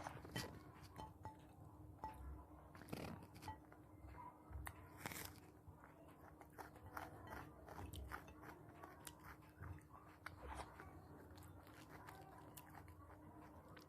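Close-up eating sounds: a person chewing and biting food, with irregular soft crunches and wet mouth clicks. A faint steady hum sits underneath.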